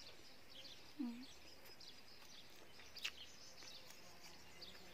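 Quiet garden ambience with faint bird chirps, a short low 'mm' hum from the person eating about a second in, and a single sharp click about three seconds in.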